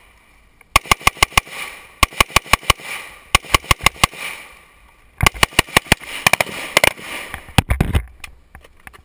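Handgun shots fired in rapid strings: about six quick shots, a short pause, another string of about six, a few more, then a longer and denser run of shots in the second half.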